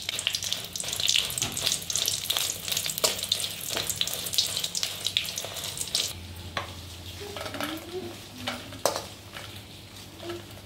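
Dried red chillies roasting in a little oil in an aluminium kadai, sizzling and crackling while a steel spoon stirs and scrapes them against the pan. About six seconds in the sizzle dies down, leaving scattered scrapes and clinks of the spoon as the chillies are lifted out.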